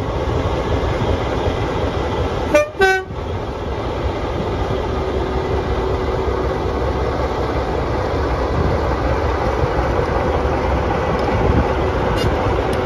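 Class 44 'Peak' diesel locomotive D4 running slowly past close by, its Sulzer diesel engine giving a steady low rumble. Two short horn toots sound about two and a half seconds in.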